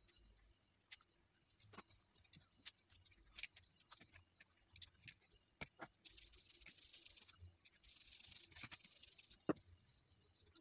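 Faint clicks, ticks and soft rustling as raw fish pieces are handled and turned over on a plate, with two short stretches of soft hissing near the middle.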